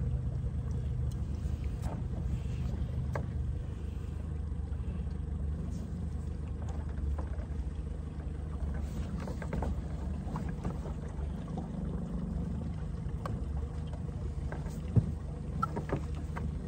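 Small boat's outboard motor running at low speed with a steady low hum as the boat moves off the bank, with scattered small clicks and one sharp knock near the end.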